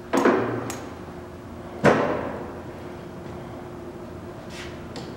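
Two metallic clunks from the gear-change levers on a Servo SE1640 engine lathe's headstock being shifted to a new spindle speed, each ringing out for a second or so. There are a couple of lighter clicks between them and a faint steady hum underneath.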